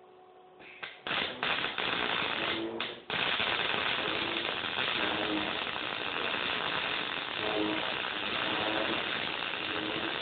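Short-circuit MIG welding arc on 3/8-inch hot-rolled steel with the mill scale ground off, the wire feed speed started low and turned up to find the lower end of the range. The arc strikes about a second in, stops and restarts a few times, then runs continuously from about three seconds in.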